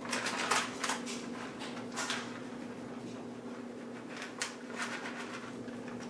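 Plastic bag crinkling in short, irregular rustles as shredded cheddar cheese is shaken out of it onto a casserole, over a steady low hum.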